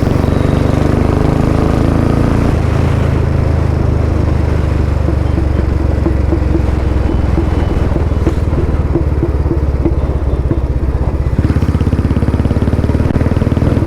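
Royal Enfield Bullet 350's single-cylinder engine running through a Long Punjab aftermarket exhaust while riding, its note changing about two seconds in. No backfire pops come through: the rider puts that down to the engine not being warm yet.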